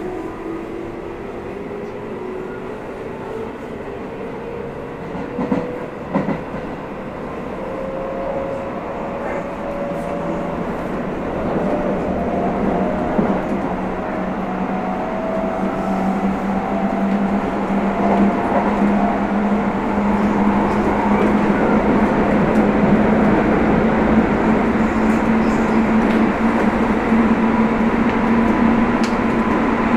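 Hokuso 9100 series electric train pulling away and gathering speed, heard from inside the car: the traction motor whine rises slowly in pitch while the running noise grows louder. There are a couple of sharp knocks about five to six seconds in.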